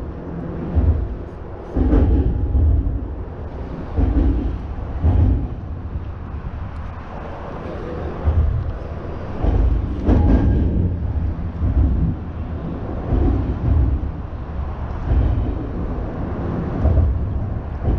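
Road traffic crossing the bridge: a continuous low rumble of passing vehicles, swelling in surges every second or two.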